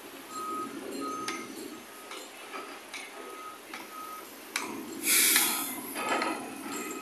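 Short beeps at one steady pitch, repeating roughly twice a second, over faint background noise. About five seconds in, a louder rushing hiss with no pitch sounds for about half a second.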